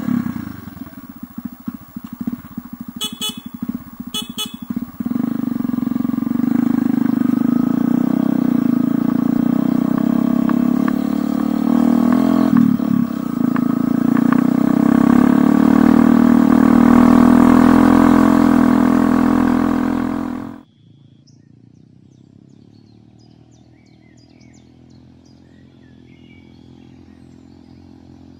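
Motorcycle engine pulling up a steep climb under steady load, growing louder, with two sharp clicks about three and four seconds in. It cuts off abruptly about twenty seconds in, leaving faint bird chirps.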